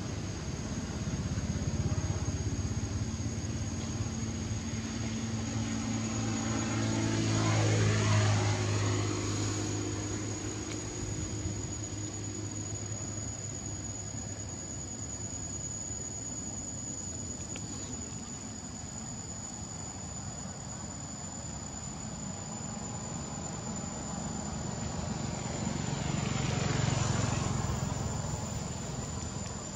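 A motor vehicle passing by, its engine loudest about 8 seconds in with its pitch falling as it goes past, then another passing near the end. Under it, insects keep up a steady high-pitched drone.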